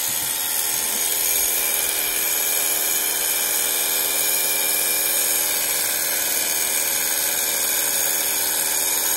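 Hand-held blow dryer running steadily, a constant rush of air over a motor hum, blowing hot air to soften a vinyl phone skin so it will lie down over the curved edges.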